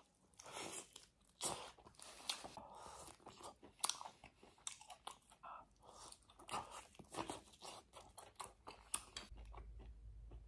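Close-up, open-mouthed chewing of braised beef-bone meat and tendon: irregular wet smacks, clicks and soft crunches of a man eating. A low steady hum starts near the end.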